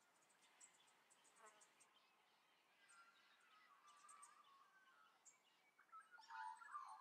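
Faint birds chirping and calling, with short high insect-like ticks, over near-silent outdoor quiet; the warbling calls grow louder near the end.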